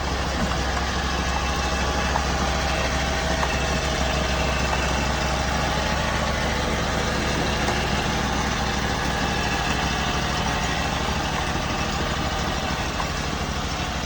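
Homemade sawmill's engine running steadily under load as the blade cuts through a log, a constant engine drone with a dense hiss from the cut.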